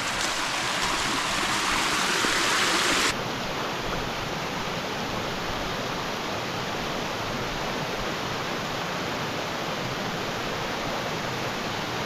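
Creek water rushing in a steady wash, louder and brighter for about the first three seconds, then dropping suddenly to a quieter, even rush.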